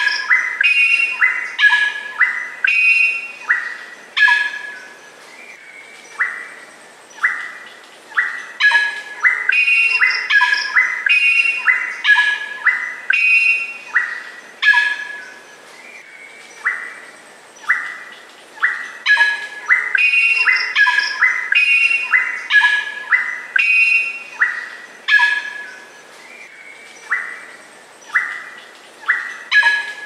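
Greater racket-tailed drongo singing: quick runs of short, loud, clear notes mixed with harsher calls, in bouts separated by quieter gaps of a second or two.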